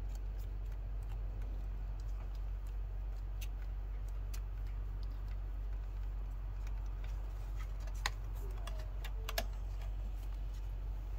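Faint scattered clicks and ticks of hands twisting a wire nut onto the hot wires in an electrical box and handling the plastic floodlight housing, with two sharper clicks near the end, over a steady low hum.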